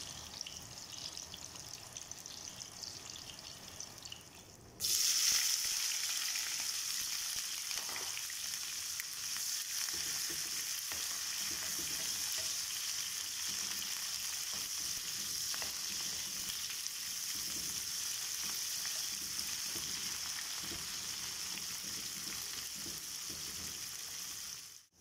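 Oil sizzling steadily under eggplant slices frying in a non-stick pan. About five seconds in, the sizzle jumps much louder as sliced red onions fry in hot oil, stirred now and then with a wooden spoon.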